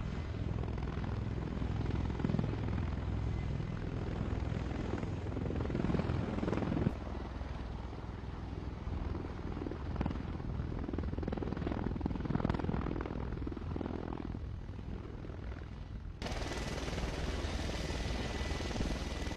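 V-22 Osprey tiltrotor's rotors and engines running: a steady low drone under a wash of noise. The sound shifts abruptly twice, once partway through and again near the end, where it turns brighter.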